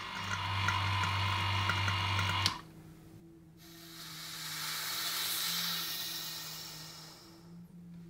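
Electric vacuum pump running with a steady hum, cut off abruptly about two and a half seconds in. Then air hisses into the stainless-steel vacuum chamber through its opened release valve, swelling and then fading over about four seconds as the vacuum is let down after degassing the resin.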